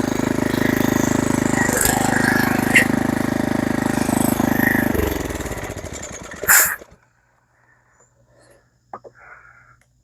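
Small gasoline engine running steadily, then shut off about five seconds in, its note falling as it spins down. A single loud knock comes just after it stops, followed by a few faint knocks.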